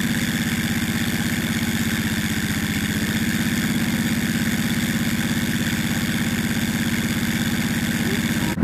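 ATV engine running steadily at low speed, with a fast, even pulse and a steady high whine over it.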